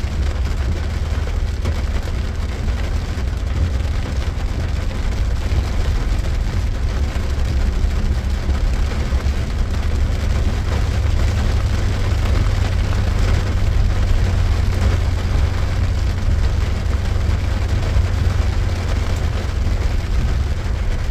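Steady low rumble of a 2021 Ford Ranger XLT driving slowly in 4x4 through mud, heard from inside the cab, with an even hiss of rain and tyres on the wet road over it.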